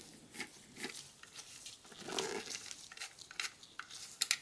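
Phillips screwdriver turning screws out of the metal side of an optical drive: faint scraping and small metal clicks, with a couple of sharper clicks near the end.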